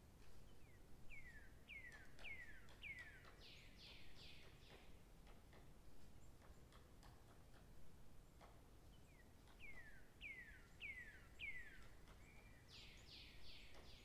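A small songbird singing faintly in two phrases. Each is a run of four or five quick whistled notes, each falling in pitch, then a few harsher rasping notes.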